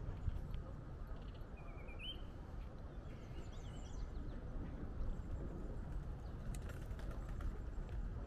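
A bird calling over a steady low rumble: a short rising trill about two seconds in, then a warbling phrase about a second later.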